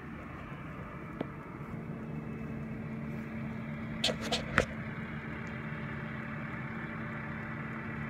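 New Holland T6.145 tractor pulling a McHale V660 round baler, its diesel engine running with a steady hum. A few short clicks a little after four seconds in.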